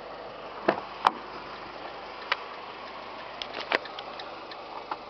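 Car door being opened: a handful of irregular sharp clicks and knocks from the Fiat 500's door handle and latch, the loudest about a second in, over a steady background hiss.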